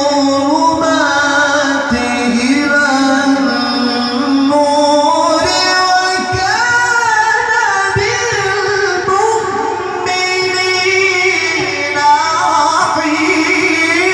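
Male Qur'an reciter chanting in the melodic tilawah style through a microphone and PA, holding long ornamented notes that slide and waver between pitches, with brief breaks for breath.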